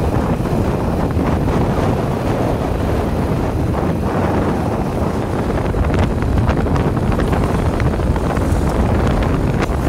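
Steady engine and road noise from a moving road vehicle, with wind buffeting the microphone.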